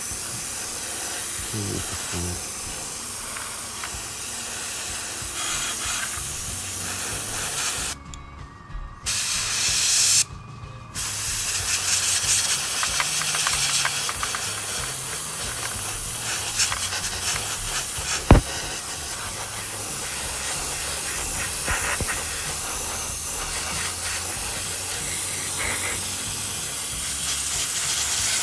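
Airbrush hissing steadily as it sprays paint at low air pressure, around 8 PSI. The air stops twice briefly in the first half, and there is one sharp click about two-thirds through.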